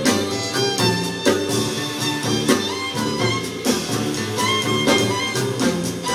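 Small jazz band playing live: a gliding melody line over upright double bass and drums keeping a steady beat.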